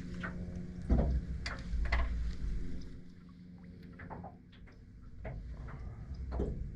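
Scattered clicks and knocks of fishing gear being handled in a small boat, with heavier low thumps about one and two seconds in, over a steady low hum.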